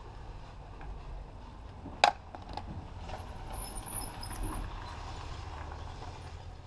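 Hands prying an old plastic marker light off a motorhome's rear body panel: a sharp snap about two seconds in, then a few small clicks and handling sounds, over a low steady rumble.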